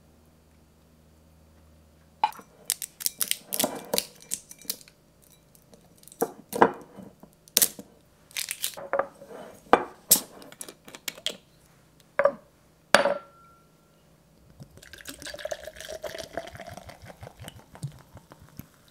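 A run of sharp clinks and knocks from a wooden spoon, ceramic plate and glass bottle being handled. Then fizzy kombucha is poured from the bottle into a tall glass, pouring and fizzing for about four seconds, its pitch rising slightly as the glass fills.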